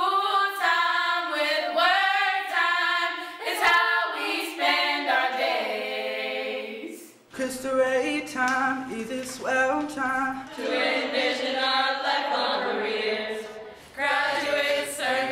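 Small groups of teenage students singing a song a cappella, voices only. The sound cuts abruptly to a different group of singers about seven seconds in and again near the end.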